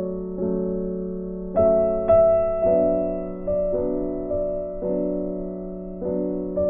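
Slow, soft piano music: sustained chords and notes, a new one struck about once a second.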